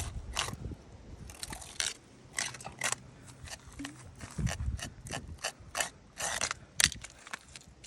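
Salmon being gutted by hand and knife: irregular clicks and short scraping strokes.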